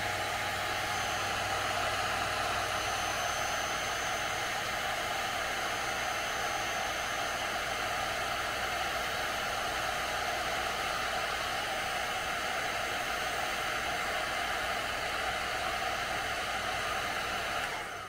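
Electric heat gun running steadily, a constant rush of blown hot air from its fan with a faint steady whine, heating a heat-shrink solder connector; it stops right at the end.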